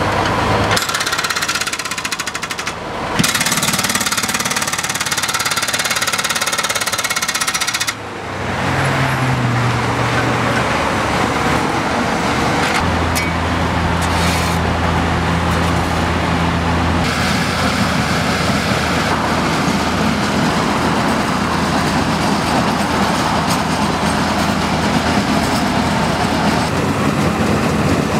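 Road repair machinery: a backhoe's hydraulic breaker hammering concrete pavement in rapid strokes, then diesel truck engines running with highway traffic, then a steady machine noise.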